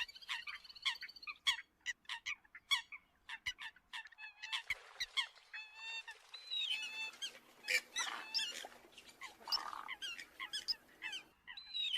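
Eurasian coots calling: a rapid, uneven run of short, sharp honking notes, overlapping in places.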